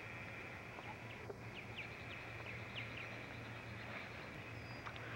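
Faint, short, high chirps of an animal, several in quick succession, over the steady low hum and hiss of an old home-video recording.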